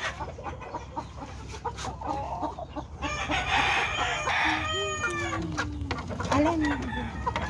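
Backyard chickens clucking, with a rooster crowing for about two seconds near the middle.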